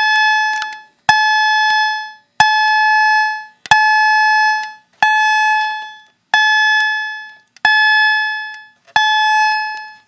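Wheelock CH-70 fire alarm chime sounding its alarm at full volume: a single bright chime tone struck about every 1.3 seconds, each strike ringing and fading away before the next.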